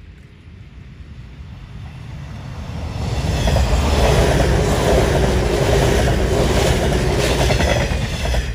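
JR 485-series 'Resort Yamadori' electric train approaching and passing close by. Its running noise swells over about three seconds and stays loud as the cars go past, with a run of wheel clicks over the rails, then drops off sharply as the last car clears near the end.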